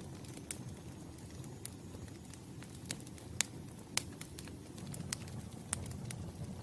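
Wood campfire crackling: a steady low rush of flames with irregular sharp pops, the loudest about three and a half and four seconds in.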